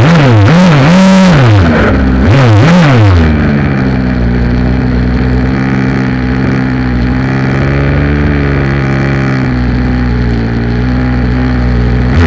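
Redcat Rampage MT 1/5-scale RC monster truck's two-stroke gas engine, heard up close from on board, revving up and down a few times, then settling to a steady idle from about three seconds in.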